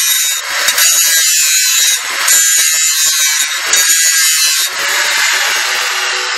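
Corded electric angle grinder grinding down a BMX bike's metal frame tube: a loud, high-pitched grinding noise that dips and surges several times as the disc is pressed on and eased off the metal, then eases near the end as the grinder comes off the tube.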